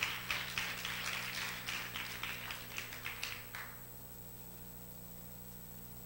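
Congregation applauding, dying away about three and a half seconds in and leaving a faint steady hum.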